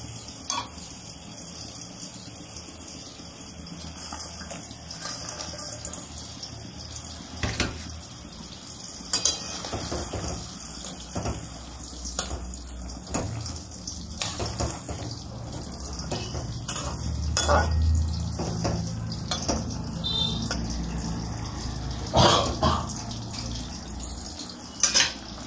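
Mustard gravy simmering in an aluminium wok, with a metal spatula knocking and scraping against the pan every second or two as it turns small fish in the gravy.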